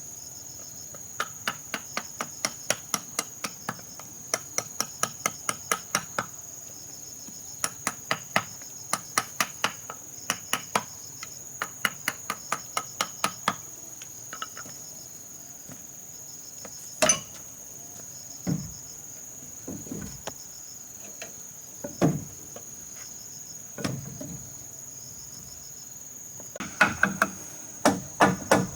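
Hammer driving nails into wood in quick runs of strikes, about three a second, with a few heavier single knocks in the middle. Crickets trill steadily in the background.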